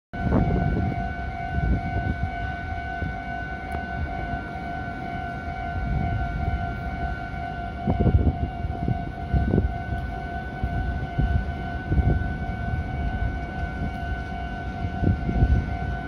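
Railway level-crossing warning bell ringing without a break, a high tone with overtones, signalling an approaching train, over a low rumble with a few knocks.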